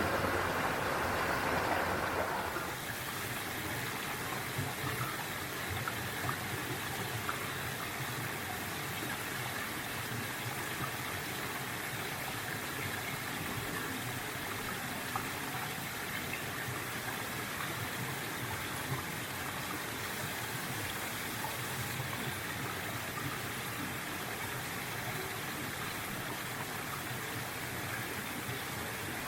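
Mountain valley stream flowing over rocks: a steady rushing and trickling of water, louder for the first couple of seconds and then settling to an even level.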